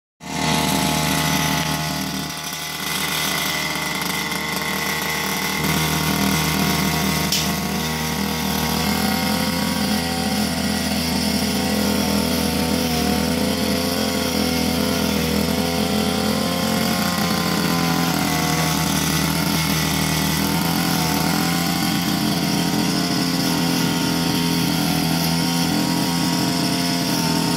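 Backpack brush cutter engine running, driving a nylon-line trimmer head. The level dips briefly about two seconds in, then the engine runs steadily at a higher, firmer speed from about six seconds on.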